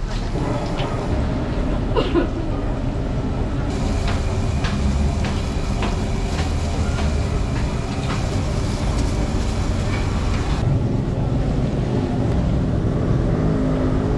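Chicken deep-frying in a large wok of oil: scattered crackles and pops over a steady low rumble.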